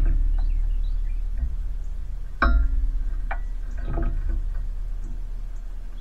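The bird feeder's metal pole and hanger clink. A sharp knock about two and a half seconds in rings briefly, followed by a lighter tick and a few faint clicks, over a low steady hum.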